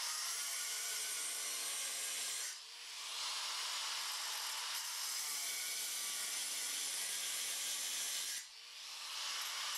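Handheld angle grinder with a diamond blade dry-cutting granite: a steady, high grinding noise. It drops away briefly twice, about two and a half seconds in and near the end, then builds back up.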